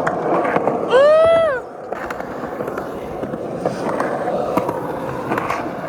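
Skateboard wheels rolling over rough pavement, a steady gritty rumble with scattered small clicks. About a second in, a loud, short, high-pitched whoop rises then falls in pitch over the rolling.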